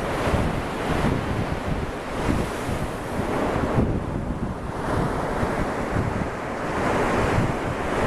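Surf breaking and washing onto a sandy beach in a steady, rolling wash, with wind buffeting the microphone.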